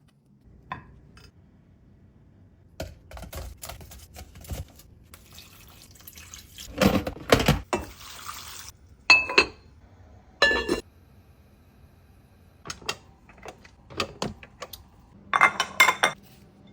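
Kitchen clatter: dishes and utensils clinking and knocking in a series of separate strikes, a few ringing briefly.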